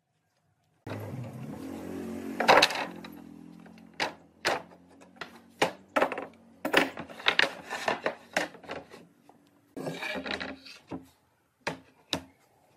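Pine boards and metal pipe clamps knocked and set down on a wooden workbench: a series of short, sharp wooden knocks and clacks, the loudest one about two and a half seconds in. A steady low hum lies under the first part and fades out after about eight seconds.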